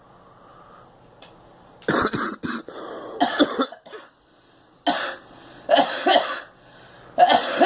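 A girl coughing in a series of fits, starting about two seconds in: several bursts of a few coughs each, with short pauses between them.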